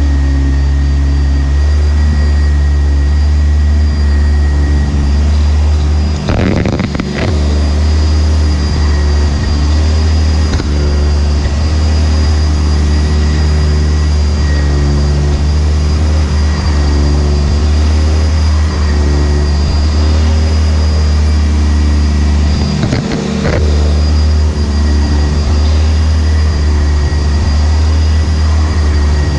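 Sanitaire SC679j commercial upright vacuum with a 5 amp motor and Viper Groomer brush roll running steadily, heard through a camera mounted on the vacuum, so a strong low vibration hum lies under the motor's whine. The steady sound is briefly disturbed twice, about six seconds in and again near twenty-three seconds.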